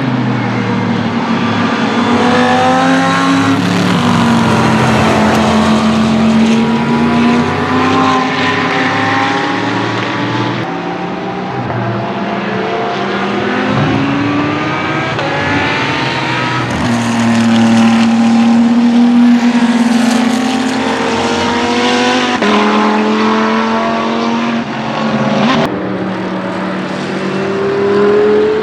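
GT race cars passing one after another at speed, their engines rising in pitch under acceleration and dropping at each upshift, several engines heard overlapping.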